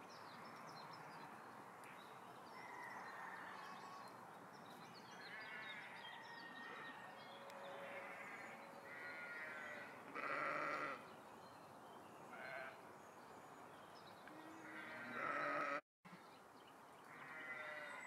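A flock of sheep bleating, many separate wavering calls of different pitches over a steady background, the loudest about ten seconds in and just before a brief dropout near the end.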